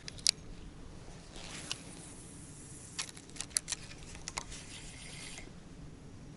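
Spinning reel being handled during a cast and retrieve: a few sharp clicks near the start, a tight cluster of clicks from about three to four and a half seconds in, and a faint rustle and hiss between them.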